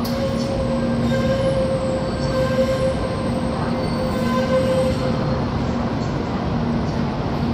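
Taiwan High Speed Rail 700T train pulling slowly into an underground station platform. The rumble of the train running is overlaid with a steady whine, the strongest part of which stops about five and a half seconds in as the train comes to a stop.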